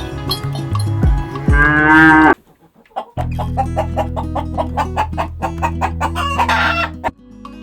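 Chickens calling over background music with a steady beat: a rooster crow about two seconds in, then the music breaks off briefly, and a second shorter call comes near the end.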